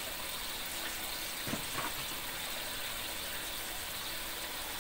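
Tofu and cauliflower simmering in sauce in a wok on a gas stove: a steady hiss of the liquid cooking.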